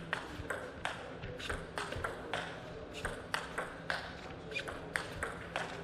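Table tennis rally: the ball clicks in a steady run, about two to three strikes a second, as it is struck back and forth by the bats and bounces on the table.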